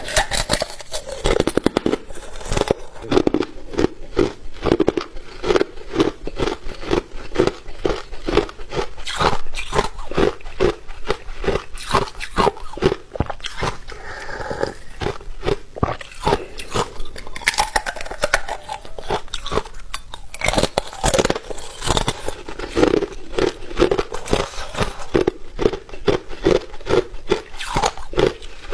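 Ice being chewed close to the microphone: a steady run of sharp, crisp crunches, several a second.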